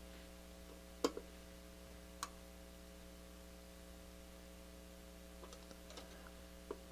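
Faint steady mains hum with a few light clicks: one about a second in, another about two seconds in, and several small ones near the end.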